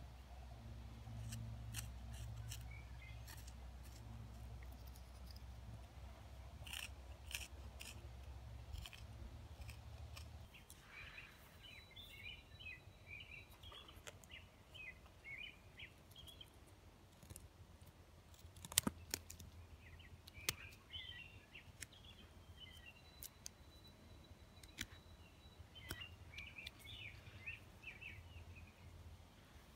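Helle Sigmund carving knife shaving dry wood: quiet, irregular scrapes and small clicks as thin cuts are taken, with one sharper click about two-thirds of the way through. Birds chirp in short bursts in the background from about a third of the way in.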